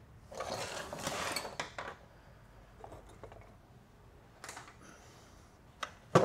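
Metal automatic-transmission parts being handled and set down on a steel workbench: a stretch of scraping and clinking for the first two seconds, then a few light clicks and a short rattle.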